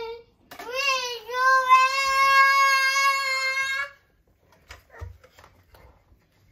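A young child's voice singing out one long, high 'aaah' for about three seconds, sliding up at the start and then held steady, with a shorter call just before it. A few faint taps follow.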